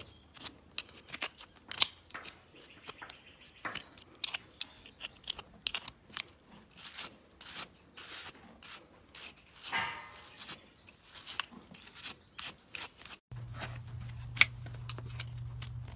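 Horse being cleaned: a run of short, irregular scraping and rubbing strokes, like a brush, pick or rasp on coat or hoof. From about thirteen seconds in, a steady low hum runs under the strokes.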